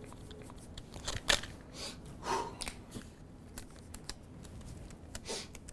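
Scattered small clicks and rustles of a small object being handled in the hands, over faint room tone, the loudest just after a second in.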